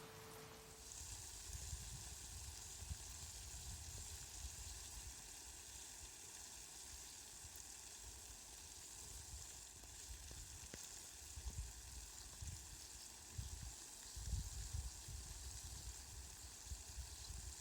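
Steady rain falling, a fine even hiss, with soft low rumbles coming and going.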